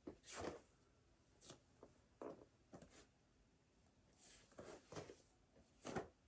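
Faint rustling of a person doing prostration bows: clothing brushing and soft contact sounds against the mat, about seven short, irregular rustles. The loudest comes near the end.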